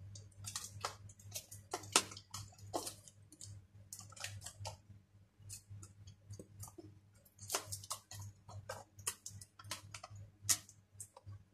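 Fingers and nails picking and scraping at a tight cardboard product box, irregular small clicks and scratches with a sharper snap about two seconds in and another near the end, as the flap refuses to come open.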